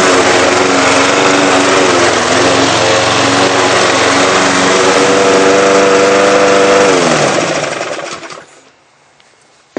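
Petrol walk-behind rotary lawn mower engine running at a steady speed, then shut off about seven seconds in: its pitch falls as it winds down to a stop over about a second and a half. A single sharp click right at the end.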